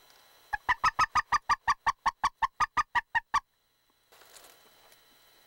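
Hand-held goose call blown in a rapid, even run of short clucking notes, about six a second for nearly three seconds, then stopping abruptly.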